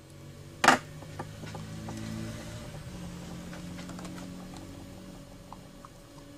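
Plastic casing of an incubator thermostat being handled and opened: one sharp click a little under a second in, then scattered small clicks, over a low hum.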